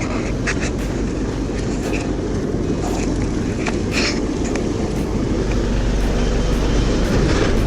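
Boat motor running steadily underway, with a few brief knocks about half a second, two, three and four seconds in.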